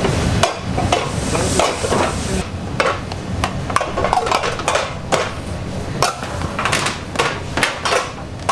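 Bakery kitchen work: irregular clinks and knocks of utensils, trays and dishes, with a hiss for the first two and a half seconds.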